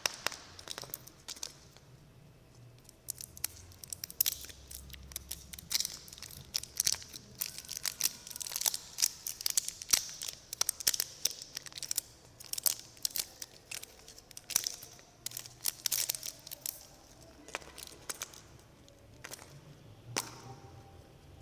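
Snack wrappers being crinkled and torn open: a dense, irregular run of sharp crackles and rips that thins out near the end.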